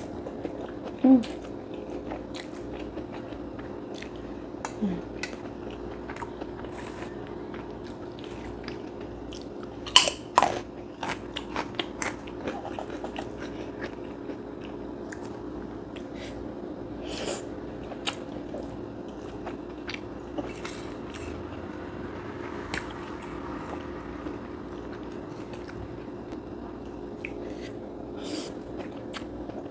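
Close-up eating: chewing a mouthful of fried noodles, with sharp crunches of kerupuk crackers scattered through it and a loud cluster of bites about ten seconds in. A steady low hum runs underneath.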